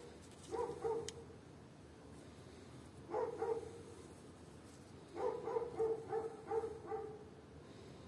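A dog's short, pitched vocal calls in groups: two just after the start, two about three seconds in, and a quick run of about six from around five seconds.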